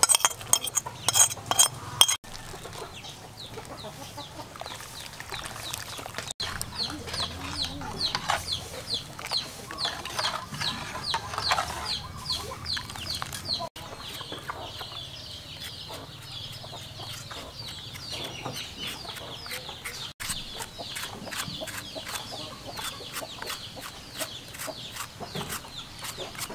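A knife scraping and clinking on a ceramic plate, then a knife slicing vegetables over a bowl in short, quick, even strokes, with chickens clucking throughout.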